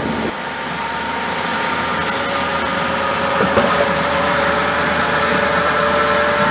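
Car cabin at highway speed: steady tyre and wind rush with a humming tone underneath, slowly growing a little louder.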